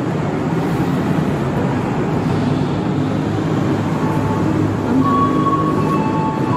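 KRL commuter electric train running with a loud, steady rumble. About five seconds in it is joined by steady squealing tones.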